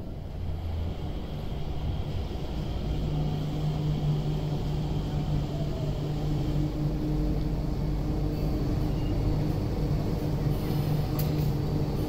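Changi Airport Skytrain people mover drawing into the station behind glass platform screen doors: a steady low hum with a couple of even low tones that grows slightly louder, with a few light clicks near the end.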